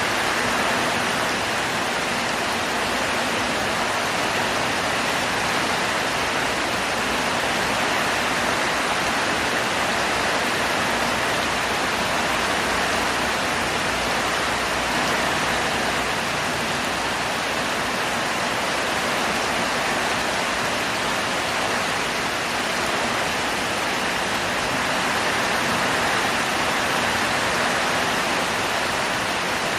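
Heavy rain pouring down in a steady, even hiss, with no breaks or single drops standing out.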